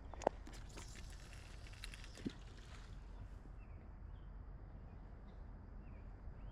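Rustling and clicking of gear being handled for about three seconds, with a sharp knock near the start and another about two seconds in. Then quiet outdoor ambience with a steady faint high hum and a few faint chirps.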